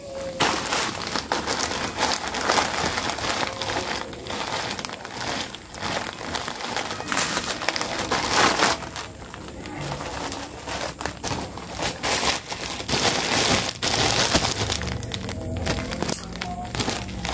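Plastic courier mailer bag crinkling and crackling as it is squeezed and handled, with scissors cutting into the plastic near the end.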